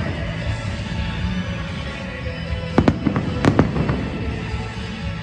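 Aerial fireworks shells bursting: a quick cluster of several sharp bangs about three seconds in, over a steady bed of music.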